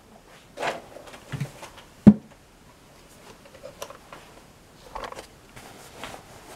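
Faint handling noises, light knocks and rustles, as a plastic 1:18-scale toy Sherman tank is picked up and set in place, with one sharp knock about two seconds in.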